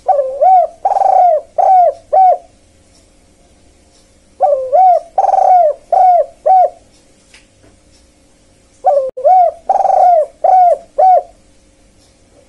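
Spotted dove cooing: three phrases about four and a half seconds apart, each a quick run of four or five coos with the second note the longest, over a faint steady hum.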